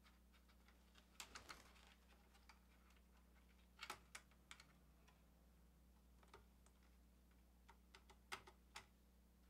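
Faint, scattered clicks and small taps of fingers working a ribbon cable back into its connectors on an audio equalizer's circuit board, in small clusters about a second in, around four seconds in and near the end, over a low steady hum.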